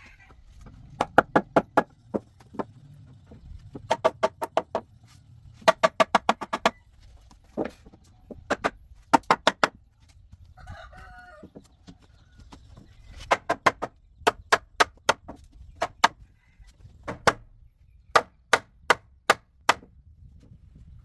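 Hammer blows on wood in quick bursts of four to six strikes, about five a second, some with a short ringing tone, with pauses between the bursts.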